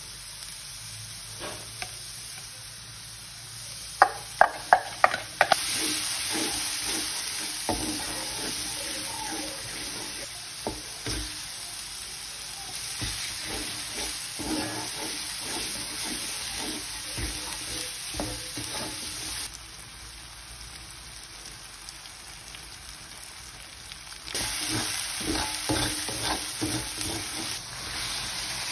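Ground chili paste frying in oil in a wok, sizzling steadily while a spatula scrapes and stirs it in irregular strokes. About four seconds in come five or six sharp knocks in quick succession; the sizzle drops back for a few seconds past the middle and comes back louder near the end.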